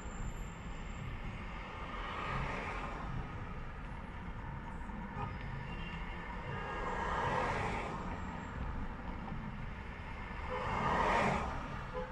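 Road traffic: a steady low rumble of engines and tyres, with passing vehicles swelling up about two seconds in, about seven seconds in, and loudest near the end.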